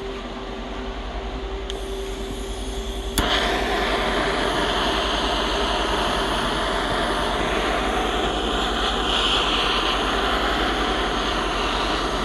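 A power tool running steadily with a hissing whine. It steps up sharply with a click about three seconds in and then holds steady.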